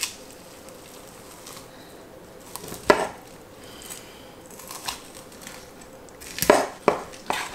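Chef's knife chopping through a raw rabbit's bones and joints on a granite countertop. One sharp knock comes about three seconds in, then three quick knocks near the end.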